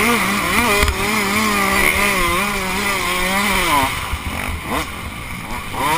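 Small two-stroke dirt bike engine running under throttle, its pitch wavering as the rider works the throttle. About four seconds in it drops off as the throttle is eased, then picks up again near the end.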